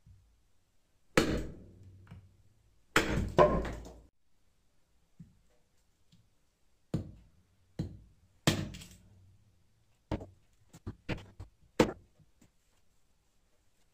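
A heavy cleaver of bearing steel chopping a raw meat bone on a wooden stump block: about ten separate chops. The two hardest come in the first few seconds, and a quicker run of lighter chops follows near the end.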